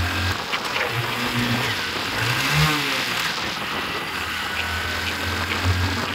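A motor vehicle driving at speed, its engine hum under a steady rush of wind and road noise; the engine note dips out and comes back, with a short pitch glide a few seconds in.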